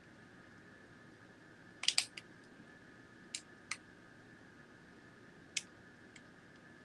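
Scattered sharp clicks of computer keys: a quick cluster of three or four about two seconds in, then single clicks spread through the rest, over a faint steady hum.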